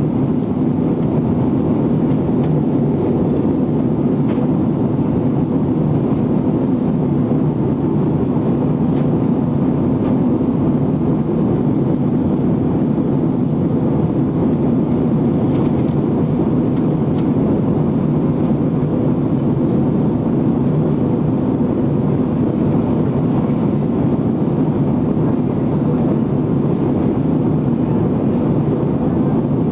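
Jet airliner cabin noise: a steady, loud low rumble of the engines and airflow heard from inside the passenger cabin.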